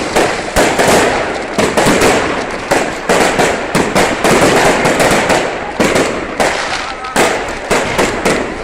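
Aerial fireworks going off in quick succession, several sharp bangs a second over a constant crackle.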